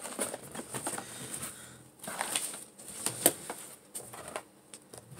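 Paper rustling and crinkling as sheets and packing paper are handled out of a cardboard box, with scattered light taps and clicks. The rustling is busiest from about two to three and a half seconds in, with one sharp tick near the end of that stretch.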